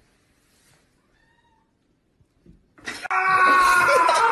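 Domestic cat letting out a sudden loud, drawn-out yowl about three seconds in, its pitch sliding slowly downward, after a near-silent start.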